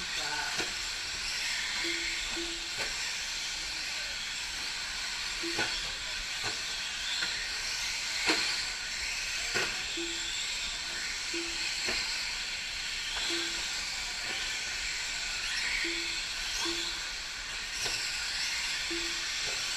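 1/10-scale electric 4WD short course RC trucks racing on a dirt track: a steady high hiss of motors and tyres, broken by sharp knocks from trucks landing or hitting the boards, the loudest about eight seconds in. Short low beeps sound every second or two.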